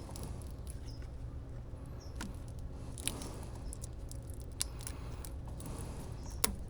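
A few sharp clicks and light taps from hands-on work, scattered over a steady low hum.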